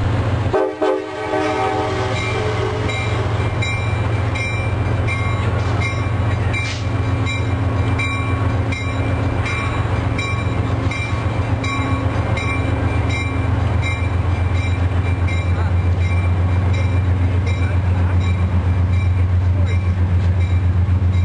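Passenger train's diesel locomotive running with a loud, steady deep drone as the train creeps along below. The sound briefly dips just under a second in.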